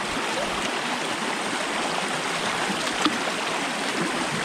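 Shallow river running fast over rocks: a steady rush of water, with one brief knock about three seconds in.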